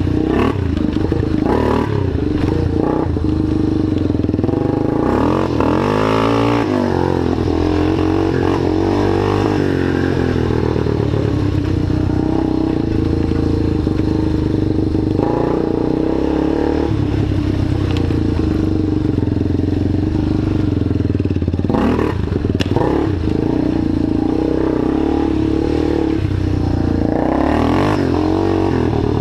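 ATV engine idling steadily, its pitch wavering briefly about six seconds in, with a garden hose spraying water onto the tyres and frame.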